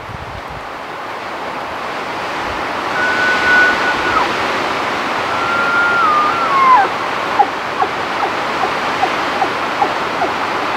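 Rocky Mountain bull elk bugling: a high whistled note, broken in two, that steps and slides down at its end, followed by a string of about seven short grunting chuckles. A steady rushing noise runs underneath and grows louder.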